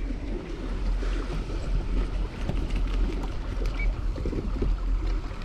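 Steady wind rumble on the microphone, with water lapping and splashing around a kayak on the sea.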